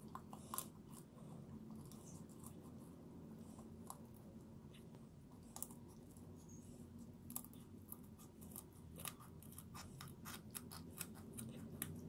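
Kitchen scissors snipping through a raw chicken's backbone and ribs: faint clicking cuts, a few scattered at first, then coming in quick succession in the second half.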